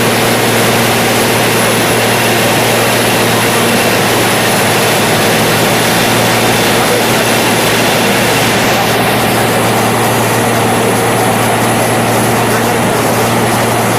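Cat PM102 cold planer running steadily, its diesel engine and rotating milling drum making a loud continuous drone with a steady low hum.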